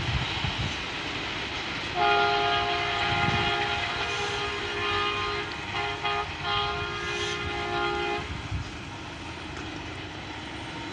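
Diesel locomotive air horn, a ZCU-20 leading an express train, sounding a chord of several notes. It starts about two seconds in and is held for about six seconds with a few short breaks, over a low rumble.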